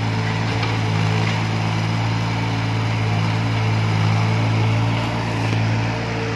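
Engine of a small wheeled walking excavator running steadily, a low, even hum.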